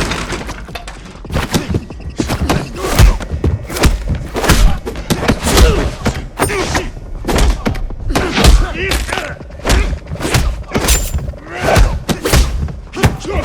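Dubbed fight-scene sound effects: a steady run of heavy punch and kick impacts, each with a deep thud, about one or two a second, mixed with grunts of effort.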